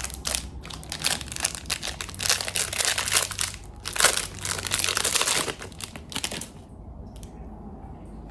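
Packaging crinkling and rustling as a small fidget toy is unwrapped and handled. It stops abruptly about six and a half seconds in.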